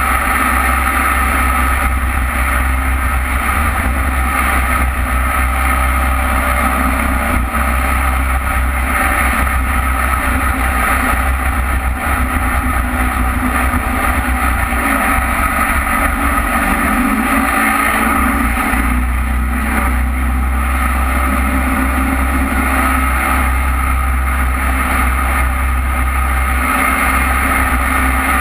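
Jet boat's engine running steadily at speed, with no letting up.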